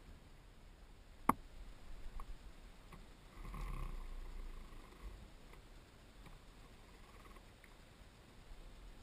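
Small knocks and clicks of fishing tackle being handled in a canoe on calm water, with one sharp click about a second in and a brief soft rustle a few seconds later.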